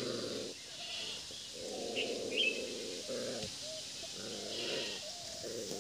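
Puppies growling in play as they wrestle, in several short rough stretches with brief gaps between them. A couple of short bird chirps about two seconds in.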